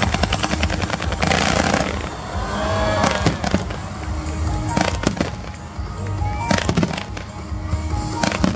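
Fireworks display with background music: a rapid crackling salvo in the first second, then single shell bursts going off one after another.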